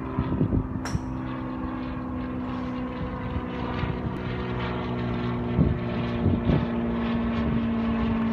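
Steady drone of an engine running, with a single sharp click about a second in.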